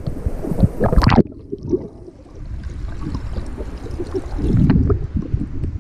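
Splashing of a swimmer's strokes at the water surface, then, about a second in, the sound turns muffled and low as the camera goes underwater: dull churning and gurgling of water around the swimmer.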